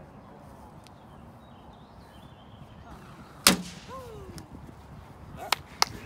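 A single sharp smack of a plastic wiffle ball, the loudest sound, about three and a half seconds in. A short falling voice follows it at once. Two quick sharp clicks come near the end.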